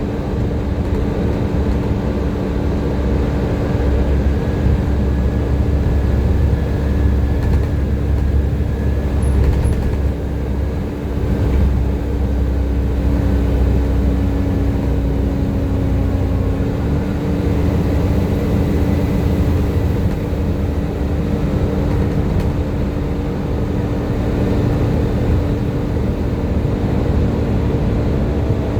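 Volvo B7TL double-decker bus running under way, with a steady engine drone and a continuous 'hoover' whine held at one pitch that shifts slightly about seventeen seconds in.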